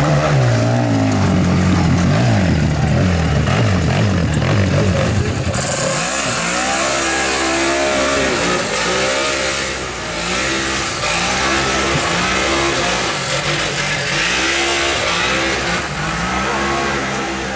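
Polaris RZR side-by-side's engine revving hard on a rough hill climb, its pitch sweeping up and down. From about five and a half seconds in, it revs in repeated rising and falling surges about every second and a half as it works up the slope.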